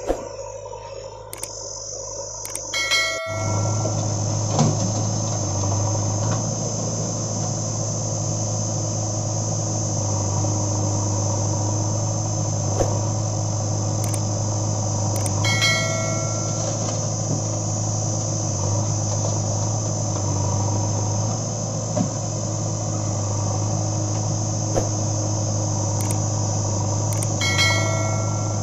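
Diesel engine running steadily at idle, with a high steady insect drone; the whole sound steps up louder about three seconds in. A short electronic chime sounds three times, about twelve seconds apart.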